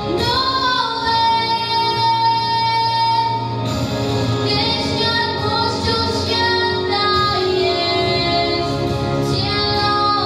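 A girl singing a Christmas carol into a microphone over instrumental accompaniment, holding one long note in the first few seconds.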